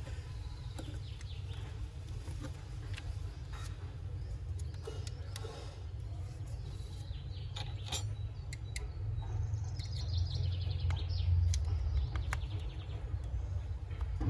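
Small plastic juicer parts handled and prised with a screwdriver, giving scattered light clicks and taps over a steady low rumble. A bird chirps in a quick run about ten seconds in.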